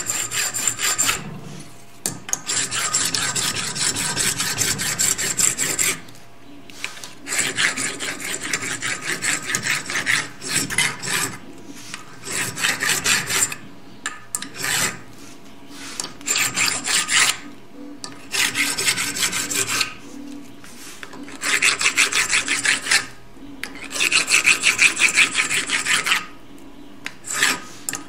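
Hand file rasping back and forth across the crimped end of a Gaggia Classic steam valve, filing off the factory crimp to release the brass spindle. The strokes come quickly in runs of a few seconds, broken by short pauses.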